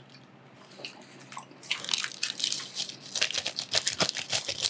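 Close-up eating sounds: chewing, then from about two seconds in a dense run of crisp crackles as a sheet of dried nori seaweed is handled and wrapped into a hand roll.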